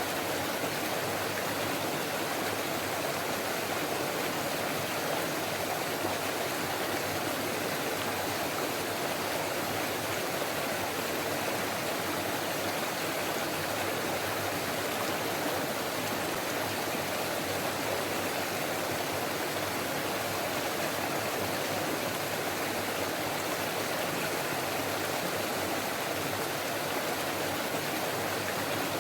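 Forest stream flowing and babbling steadily over rocks, a constant even rush of water with no breaks.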